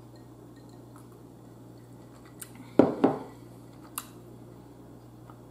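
Eating and drinking mouth sounds: a few small clicks and one brief louder mouth noise about three seconds in, over a low steady hum.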